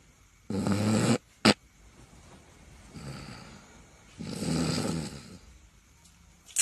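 Snoring: a loud rasping snore about half a second in, then a short sharp snort, a quieter breath around three seconds, and another long loud snore from about four to five seconds in.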